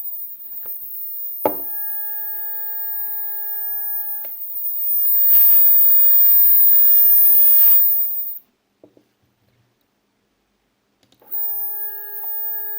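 Single stepper motor on a 3D printer axis, energised and giving a steady whine of several tones. From about five seconds in it runs through a move for some two and a half seconds, louder, with a rushing noise over the tones, running normally without the loud noise that a parallel connection gives. The sound then cuts off suddenly for about three seconds, and the whine comes back near the end.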